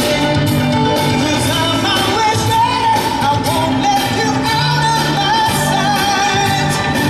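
Pop song with a singing voice over a steady beat.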